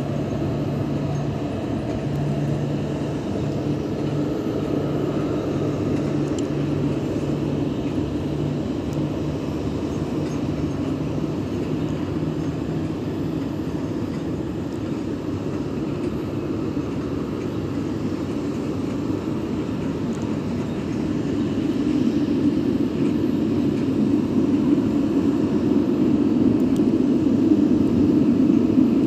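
Steady low rumble of a vehicle heard from inside it, with a low engine hum for the first dozen seconds. The rumble grows louder about 22 seconds in.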